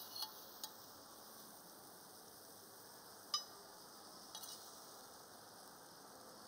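A few light clinks of a metal slotted spoon against a stainless steel frying pan as sautéed mushrooms and potatoes are spooned out, with one sharper clink about halfway, over a steady faint hiss.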